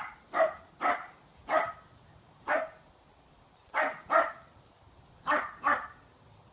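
Dog barking in short single barks, about nine over several seconds, some coming in quick pairs.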